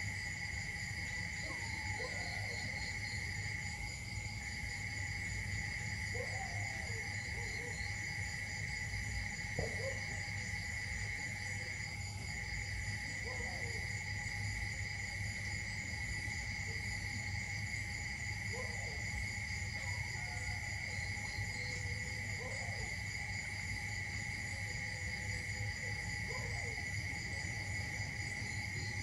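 A steady, shrill insect chorus, with a fine rapid pulsing in the higher notes, and faint short calls every few seconds beneath it.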